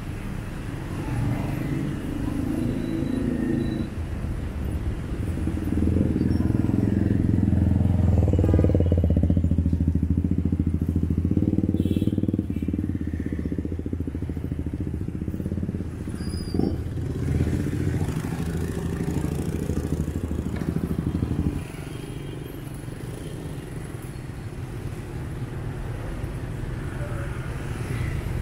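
Motorbike and scooter engines running close by amid busy street traffic, loudest for several seconds in the middle. The engine sound drops off suddenly about three-quarters of the way through, leaving a lower steady traffic noise.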